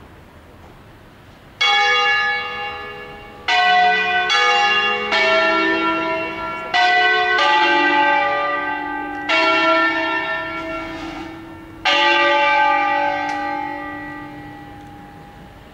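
Italian church bells cast by Angelo Ottolina in 1947, swung and rung in a five-bell solemn concerto. About eight single strikes of different pitches sound one after another at uneven intervals, starting about a second and a half in and together forming a melody. The last strike is left to ring and fade.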